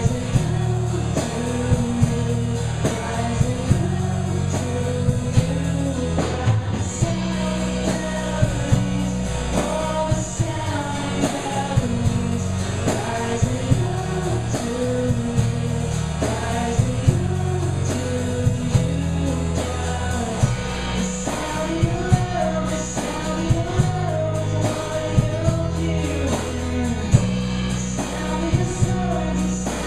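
Live worship band playing with singing: a sung melody over bass, drums and guitar.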